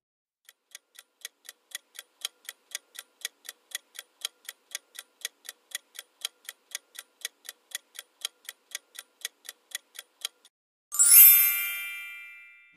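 Quiz countdown-timer sound effect: even clock ticks about four a second, swelling in over the first couple of seconds and running for about ten seconds. Then, about two seconds before the end, a bright chime with several ringing tones that fades away, marking time up and the answer reveal.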